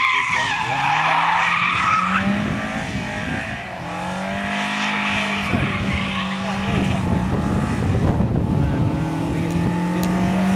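Chrysler Avenger saloon driven hard through corners: its tyres squeal for about the first two seconds. The engine runs at high revs throughout, its note falling and rising again as the car comes out of the corner and carries on.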